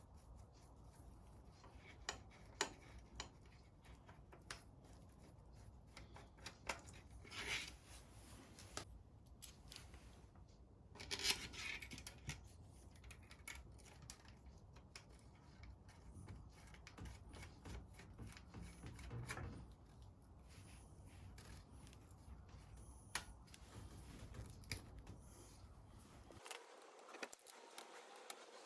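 Faint scattered clicks and small handling noises over a low hum, which cuts off suddenly near the end.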